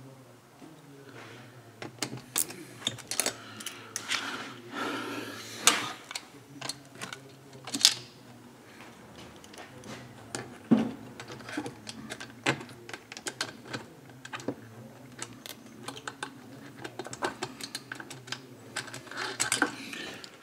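Irregular light metallic clicks and taps of hand tools working on a chainsaw engine while its cylinder bolts are fitted with a T27 Torx driver, over a steady low hum.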